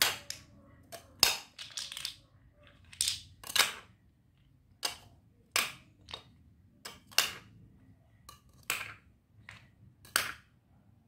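Plastic game coins dropped one at a time into a clear plastic tube, each landing on the stack with a sharp click. About a dozen clicks at irregular intervals.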